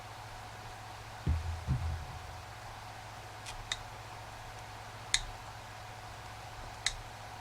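Wire cutters worked on an extension cord: two dull handling bumps, then a few sharp clicks a second or two apart as the jaws snap shut, the cutters not cutting this wire well. A low steady hum underneath.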